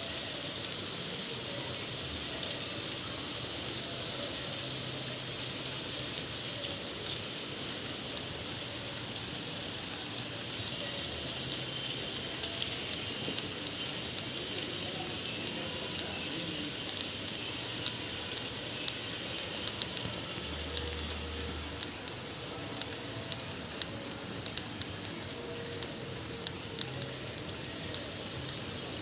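Steady rain hissing down, with scattered sharp taps of individual drops that come more often in the second half.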